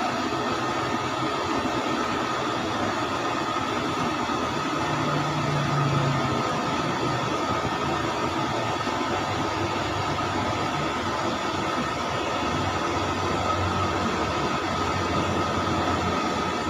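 Steady, loud machine-like roar with a constant high whine running through it, and a low hum that swells briefly twice.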